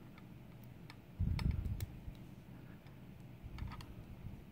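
Faint, scattered small clicks and taps of a dimple lock cylinder and its parts being handled, with a soft low bump a little over a second in.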